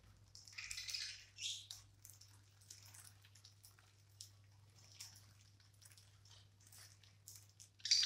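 A flock of budgerigars pecking at seed on a woven mat: scattered light ticks, with a few short chirps in the first two seconds. A faint steady low hum underneath.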